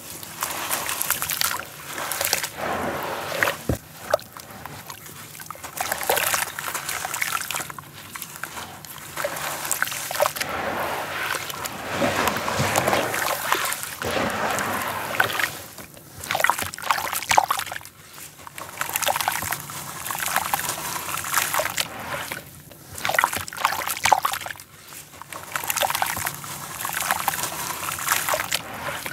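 Hands sloshing through muddy water in a tub and crumbling water-soaked red dirt blocks, with wet splashing and gritty crumbling in repeated bursts and short pauses.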